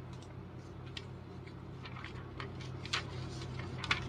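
Light clicks, taps and rustles of a cardboard box being picked up and opened by hand, with a couple of louder clicks near the end, over a steady low hum.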